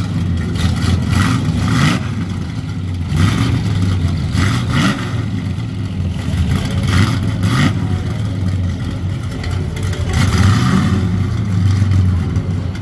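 A late-1960s Dodge Coronet's engine idling with a loud, lumpy rumble. The throttle is blipped in short revs about eight times, a few of them in quick pairs.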